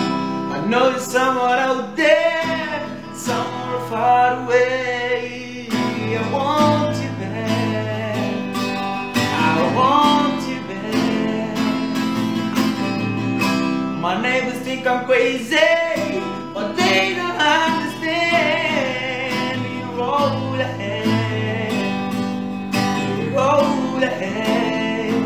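A young man sings a melodic song to his own acoustic guitar accompaniment.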